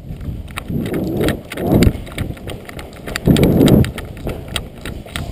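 Running footsteps on a concrete floor with gear rattling, heard as a quick run of clicks and knocks. Several louder rushes of low noise hit the microphone, the loudest about three and a half seconds in.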